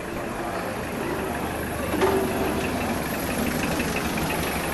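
A motor vehicle's engine running close by on a city street, a steady low rumble under general street ambience. A brief louder sound comes about two seconds in, followed by a run of light, regular ticks.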